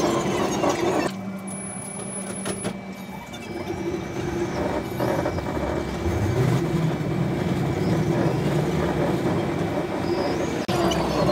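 Inside a tram: a steady low electrical hum over the tram's running rumble, then about six seconds in the traction motor's whine rises in pitch as the tram gathers speed. Street traffic noise is heard briefly at the start and again at the very end.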